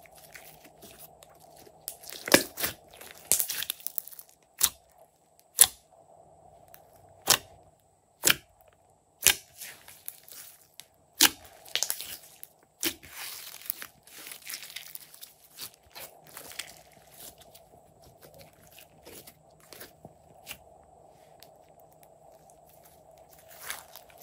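Glossy slime squeezed and kneaded by hand, giving irregular sharp pops and clicks as trapped air bursts, with wet crackling between them. The pops come thickest in the first half and thin out later, over a faint steady hum.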